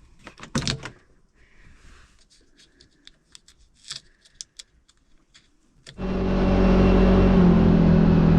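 A few sharp knocks and light clicks, then about six seconds in a side-by-side UTV's engine comes in suddenly and runs steadily and loud.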